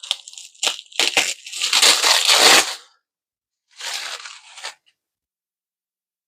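Packaging being handled and unwrapped: paper or wrapping crinkling and rustling with small clicks and tearing, in one long bout and then a shorter one about four seconds in.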